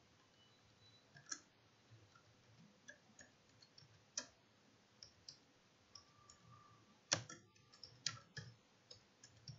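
Computer keyboard keys being typed at a slow, uneven pace: faint separate key clicks, with a couple of louder keystrokes about seven and eight seconds in.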